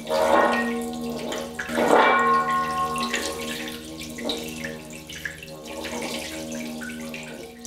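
Brass Tibetan singing bowl filled with water, rubbed around the rim with a padded mallet: a steady ringing tone with overtones, while the vibrating water spatters and splashes in the bowl in surges about every two seconds.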